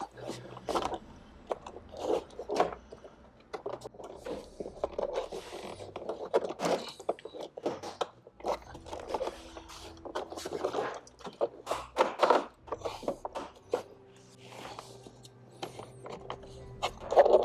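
Plastic door card of a Ford Focus being pried and pulled off the door: irregular scraping and rubbing of the plastic panel, broken by sharp cracks and snaps as the trim clips are forced free, the loudest about a second in, near 12 seconds and at the very end.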